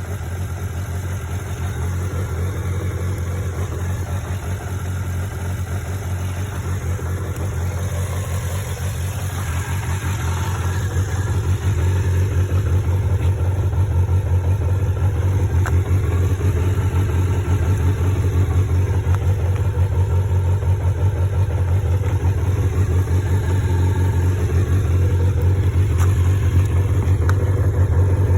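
Kawasaki Zephyr 400χ air-cooled inline-four motorcycle engine running steadily at idle, growing a little louder about ten seconds in. It runs evenly, free of abnormal noise according to the seller.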